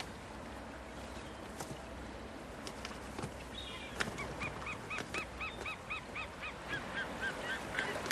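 Sea eagle calling: a rapid series of about a dozen short, arched, pitched notes, about three a second, starting about halfway through. Before it, only faint ambient noise with a few scattered clicks.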